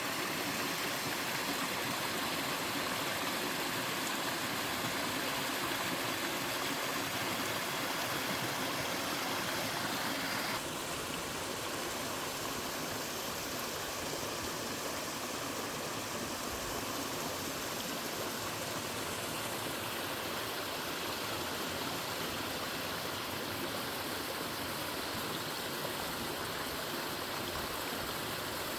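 Small mountain waterfall and stream, water rushing and splashing as a steady, even noise. About ten seconds in the sound drops a little and changes its balance, then stays steady.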